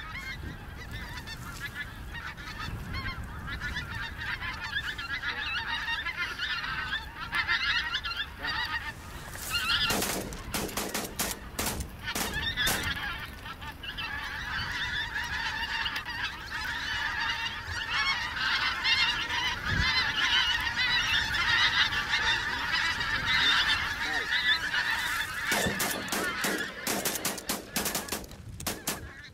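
A large flock of wild geese flying and calling, a dense unbroken honking chorus. Clusters of sharp knocks break through about ten seconds in and again near the end.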